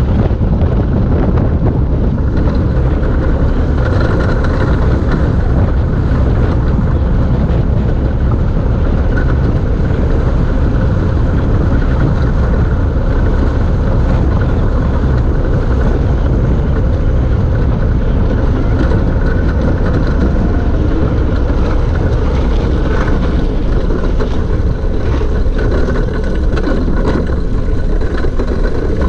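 Steady rushing noise of wind on the microphone and tyres rolling on asphalt from an unpowered gravity race car coasting downhill at speed, with scattered knocks and rattles from the chassis near the end.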